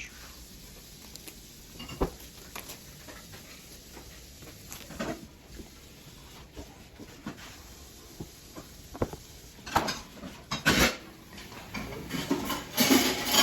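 Packaging of a new computer being torn open and handled: scattered clicks, taps and crinkling of paper and plastic wrapping, with louder rustling bursts near the end.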